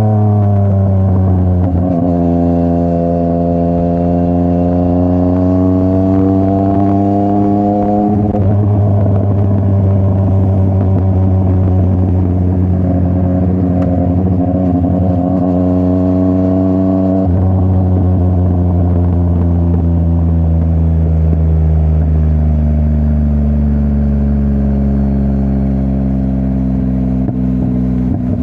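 Yamaha MT-09's three-cylinder CP3 engine through a full Akrapovic exhaust system, pulling through the gears. The revs climb, drop sharply at a gear change about 8 seconds in and again about 17 seconds in, then slowly fall away near the end.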